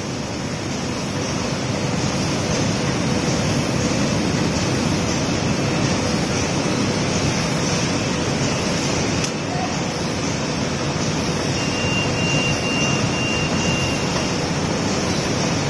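Cling film rewinding machine running steadily: a dense, even noise of rollers, shafts and motors with a faint steady hum, and a thin high whine for a couple of seconds near the end.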